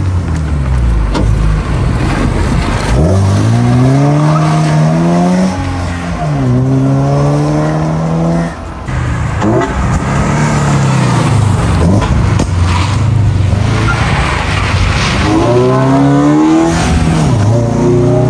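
The 2.4-litre FA24D flat-four of a GR86/BRZ, breathing through an open-pod cold air intake, accelerating hard as the car drives past. The engine note climbs steeply with the revs and drops at each gear change, several times.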